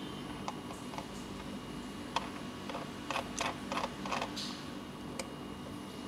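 Scattered light computer-mouse clicks, a handful of single clicks with a quick cluster about three to four seconds in, over a low steady hum.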